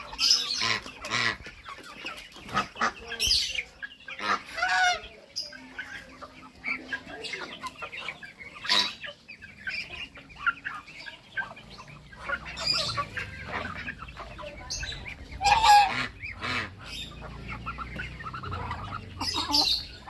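A feeding flock of village chickens and Muscovy ducks clucking and calling, the calls coming in irregular bursts with a few louder ones standing out. A low rumble runs under the second half.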